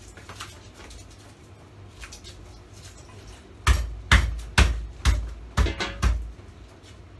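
Faint clatter of kitchen utensils, then about six heavy chops of a knife on a wooden cutting board, roughly two a second, in the second half.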